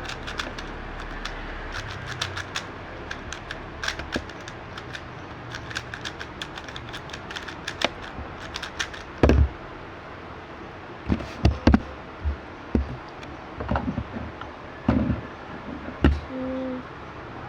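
Magnetic speed cube being turned fast: a quick run of plastic clicks and clacks, thinning out after about nine seconds, with several dull thumps in the second half.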